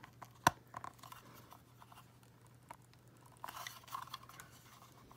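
Hard plastic parts of a doll stand, a clear rod and a round white base, clicking and scraping against each other as the rod is worked into the base. There is one sharp click about half a second in, then a few small taps and a brief scrape near the end.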